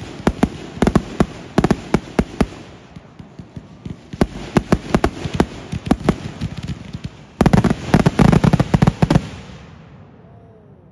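Fireworks going off: a rapid string of sharp bangs and crackling reports, thickening into a dense, loudest barrage of shots about seven seconds in, then dying away near the end.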